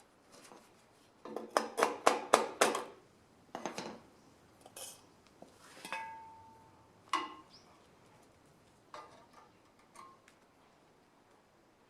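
Metal objects clinking and clattering: a quick run of sharp metallic knocks about a second and a half in, then scattered clinks, one of which rings briefly.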